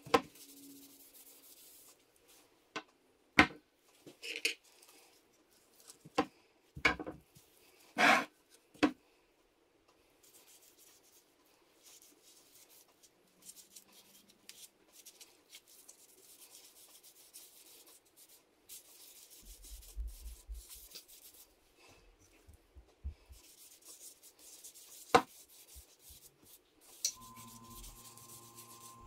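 Wooden walking stick handled and rubbed by gloved hands on a tabletop, with scattered sharp knocks and taps as it touches the table, most of them in the first nine seconds and one more near the end.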